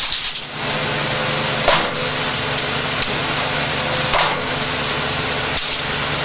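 Washing machine drum spinning at very high speed, a loud steady rushing whir over a motor hum, with four sharp cracks spread through it as pieces of potato flung around inside the drum smash against it.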